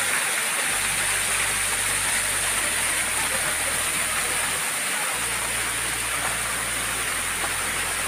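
Waterfall spilling over stepped rock ledges into a pool: a steady rush of falling water.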